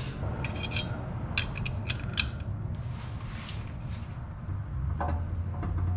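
Metal clicks and clinks of an Allen key with a wrench over it as a cheater bar, reefed on to tighten the Allen bolts of a steering box adapter plate. The clicks come in short bunches, over a steady low hum.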